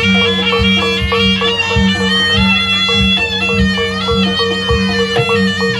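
Live jaranan gamelan music: a reedy shawm-type wind instrument (slompret) plays a shifting melody over repeated drum strokes and steady low held tones.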